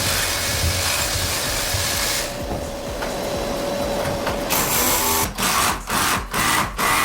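An electric power tool running steadily with a whine, then switched on and off in short pulses several times near the end.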